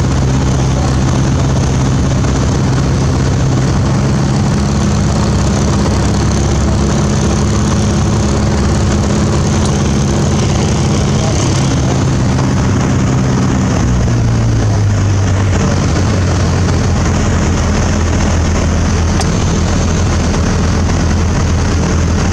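Piper Warrior II's four-cylinder Lycoming engine and propeller running steadily, heard inside the cockpit with wind noise. About 14 seconds in, the engine note steps down to a lower pitch as power is reduced on final approach to land.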